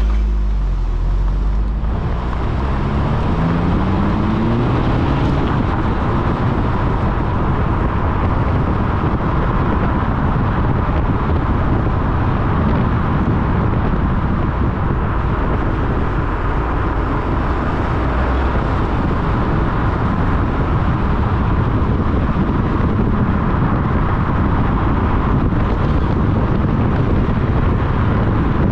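Honda Civic Type R FL5 on the move: its turbocharged four-cylinder engine rises in pitch as the car accelerates over the first few seconds, then settles into steady road and tyre noise at speed.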